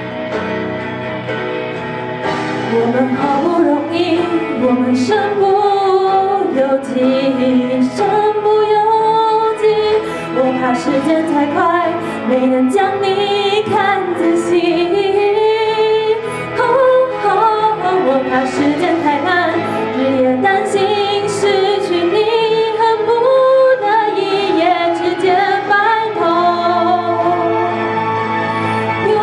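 A woman singing a Mandarin pop ballad into a handheld microphone over a karaoke backing track, amplified through the hall's PA. The backing plays alone at first and her voice comes in about two and a half seconds in.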